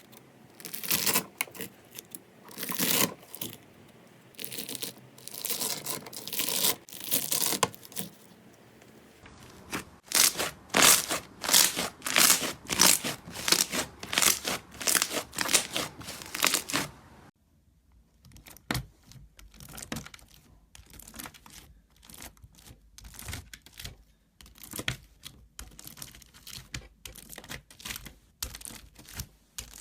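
Hands squishing and stretching slime in quick, irregular wet crackling bursts. After an abrupt change about two-thirds of the way in, the sound becomes quieter, sharper crackles and pops as a different slime is pressed.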